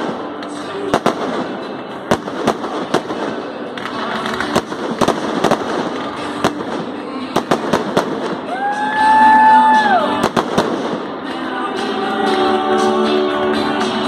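Fireworks display: a rapid, irregular series of sharp bangs and crackles from shells and comets going up. About eight and a half seconds in, a loud tone rises, holds for over a second, then drops away. Near the end, music starts up under the bangs.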